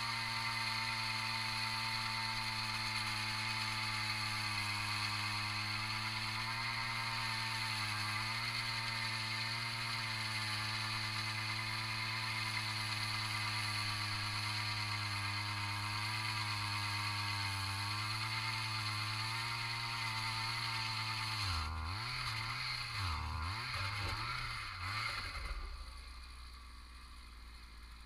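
Gas-powered ice auger running steadily at high speed while drilling through the ice. About three-quarters of the way in, its engine speed dips and surges several times, then it drops to a quieter idle near the end.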